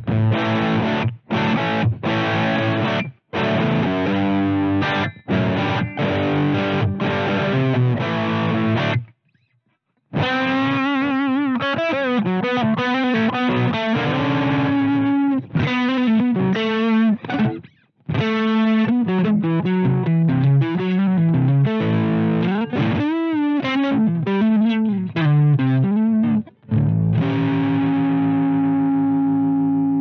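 Electric guitar played through a Twinote Boogie Distortion pedal, heavily distorted. Short, stop-start chugging chords for the first nine seconds, a brief pause, then lead lines with bent, wavering notes, ending on a chord left to ring and slowly fade.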